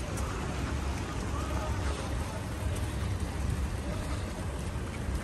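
Steady rain falling on a wet street, with a low rumble underneath.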